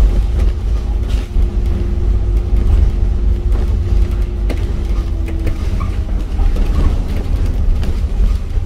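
Scania K310UD double-decker bus running: a steady low engine rumble with scattered rattles and knocks. A steady tone runs over it and fades out about five and a half seconds in.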